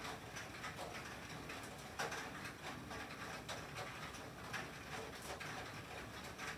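Rain and sleet hitting a tin roof: a steady patter of irregular ticks and taps, with one louder hit about two seconds in.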